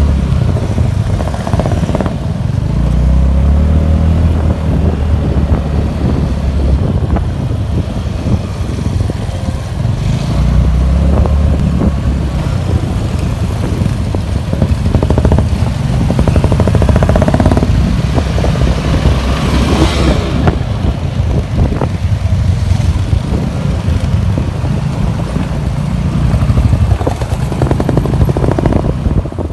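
Motorcycle riding along a rough, potholed road, heard from the moving bike, with wind rumbling on the microphone and other motorcycles running around it.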